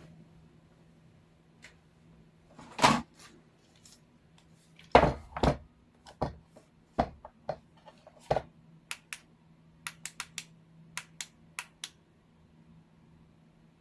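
Hard objects being handled and set down on a work surface: a few heavy knocks, then a quick run of about a dozen sharp clicks, over a faint steady hum.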